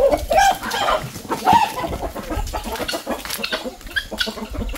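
Chickens clucking in a string of short calls, over a low rumble.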